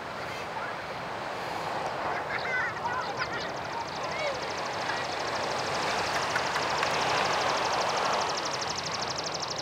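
A crowd of tourists scattering in alarm: a few short shouts and shrieks over a steady rushing noise, most of the cries about two to three seconds in.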